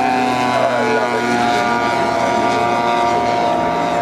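A propeller aircraft engine droning steadily as it flies past, its pitch falling slightly.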